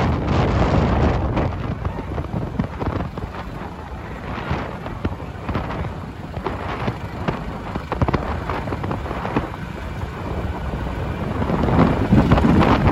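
Heavy wind buffeting on the microphone while riding alongside at speed, over the running of motorcycle engines; loudest at the start and again near the end.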